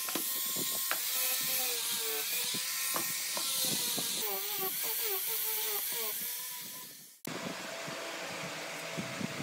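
Angle grinder fitted with a sanding drum, running and sanding the edge of a pine board: a steady high hiss of abrasive on wood over a motor whine that dips and wavers as the drum is pressed in. It fades out about seven seconds in.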